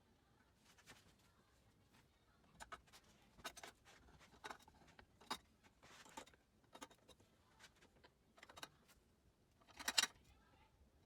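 Faint, scattered clicks and light scrapes of small objects being handled, the loudest about ten seconds in.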